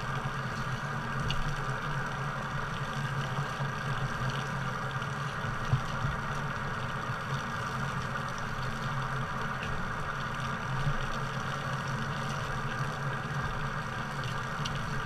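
Steady mechanical hum of an engine or motor running at an even idle, with a few faint ticks over it.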